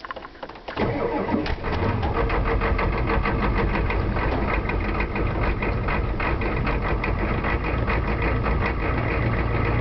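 A failing starter motor cranking a 7.3 litre IDI V8 diesel, starting about a second in and grinding on steadily and sluggishly, as if the batteries were nearly dead; the owner puts this down to the starter itself, not the batteries or wiring.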